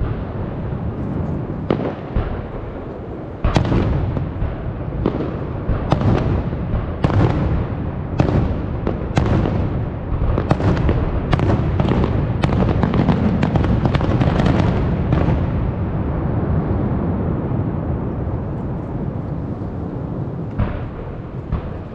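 Fireworks bursting: a rapid string of sharp bangs over a continuous low rumble, thickest about halfway through and thinning to a few scattered bangs near the end.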